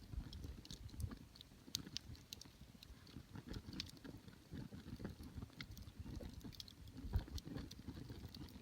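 Wind buffeting the microphone in uneven low rumbles and thumps, with scattered faint clicks over it.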